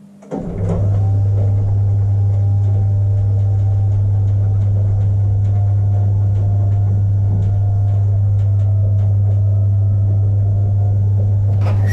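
An engine starts and runs steadily with a deep, constant low hum, with light ticks over it.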